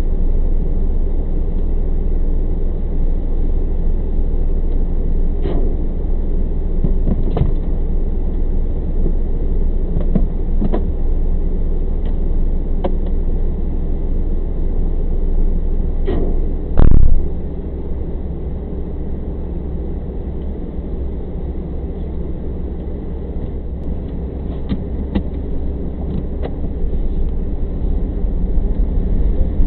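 Steady low rumble of an idling vehicle engine, with a few scattered light ticks and one loud thump about 17 seconds in, after which the sound is a little quieter.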